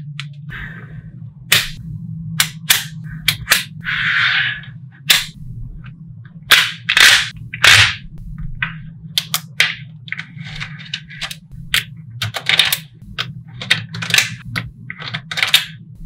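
Small magnetic balls clicking and snapping together as sheets of them are handled and joined, in irregular sharp clicks with a few short rattling clatters. A steady low hum runs underneath.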